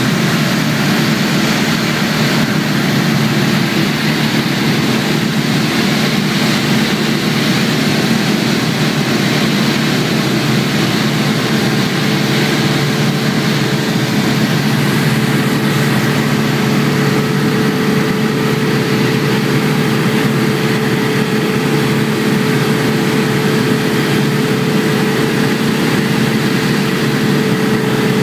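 Single-engine light aircraft's piston engine and propeller running steadily, heard from inside the cockpit as a loud, even drone. A steady higher tone joins a little past the middle.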